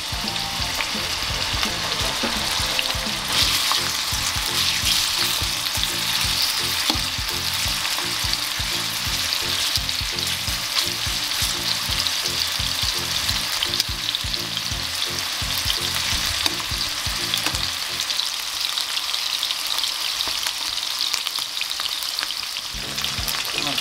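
Chicken thigh pieces sizzling steadily in a pan of olive oil, with fine crackles and pops throughout as water from the meat makes the oil spit.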